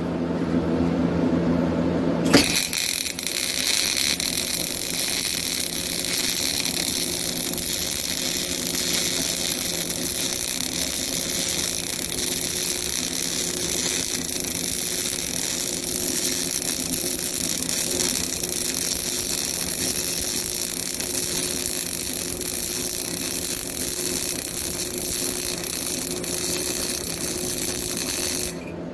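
CO2 (MIG) welding arc hissing and crackling steadily as a vertical weld bead is laid with a weaving motion, starting suddenly about two seconds in and cutting off just before the end. A low hum sits under the first two seconds.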